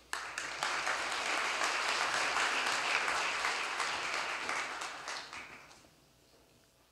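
Audience applauding, starting suddenly and fading out after about five seconds.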